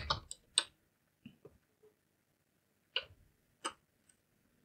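A few sparse keystrokes on a computer keyboard: single short clicks with pauses of up to a second or more between them.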